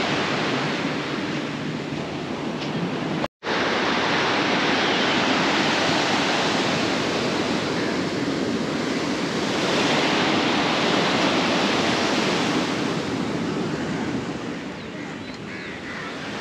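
Sea surf breaking and washing up the beach, a steady rush that swells around ten seconds in and eases off near the end. The sound cuts out completely for a split second about three seconds in.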